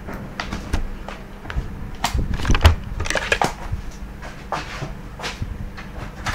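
Scattered knocks and clatters of objects being handled, coming thick and fast about two to three and a half seconds in, over a faint steady hum.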